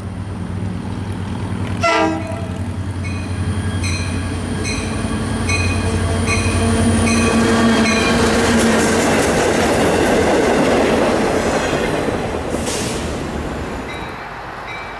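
EMD GP40FH-2 diesel locomotive leading a rail-cleaning water-spray train past at close range: a steady diesel drone, a short horn toot about two seconds in, and a bell dinging about once a second for several seconds. Engine and wheel noise swell to their loudest as the locomotive and tank cars go by, then fall away near the end.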